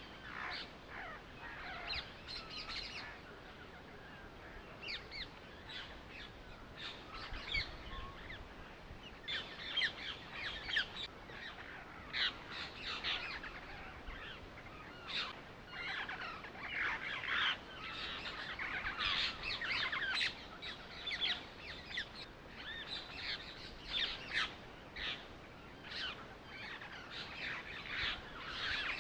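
Many small birds chirping and twittering at once, in busy overlapping clusters that thin out for a few seconds early on, then pick up again.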